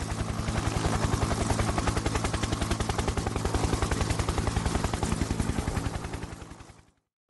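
Logo-intro sound effect: a rapid, even pulsing noise over a steady low drone, fading out near the end.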